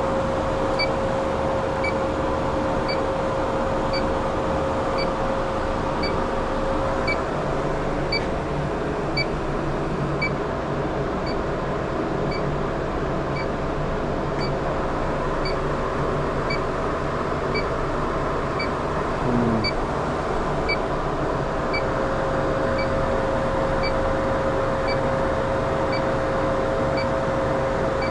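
Electronic refrigerant leak detector ticking with a short high beep at an even rate of about one a second, over the steady hum of running refrigeration equipment.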